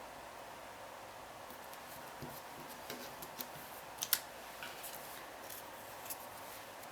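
Faint scattered clicks and light taps of small card-stock pieces being handled, over a steady low hiss; the sharpest click comes about four seconds in.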